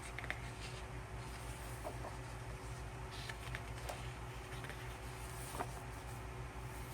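Faint handling of a photo book: a few light taps and paper rustles as pages are turned, over a steady low hum.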